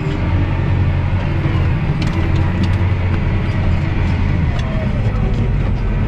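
CLAAS Axion 930 tractor's six-cylinder diesel engine running hard and steady under heavy load, heard from inside the cab, as it pulls a loaded silage trailer up a steep slope. There are a few light clicks and rattles over the engine note.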